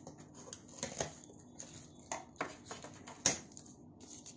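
Opening a cardboard shipping parcel by hand: irregular scratches and clicks as a pen tip cuts through the packing tape and paper is handled, with one sharper click about three seconds in.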